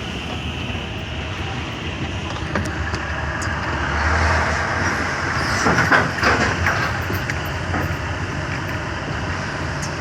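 Steady road and engine noise of a truck being driven, heard from inside the cab, swelling louder for a couple of seconds about four to six seconds in, with a few faint clicks.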